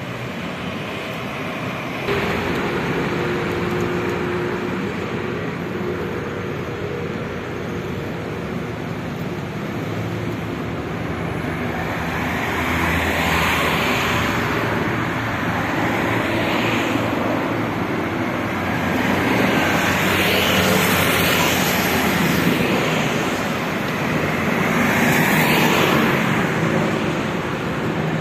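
Road traffic on a multi-lane street: a steady rush of tyres and engines, with four louder swells as vehicles pass by in the second half. A steady engine tone runs under it in the first third.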